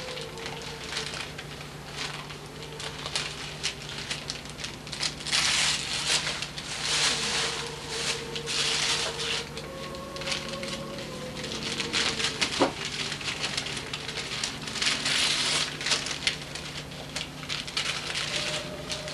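Gift wrapping paper and packaging crinkling and tearing in two loud spells of a few seconds each as presents are unwrapped, with a single sharp click a little past the middle.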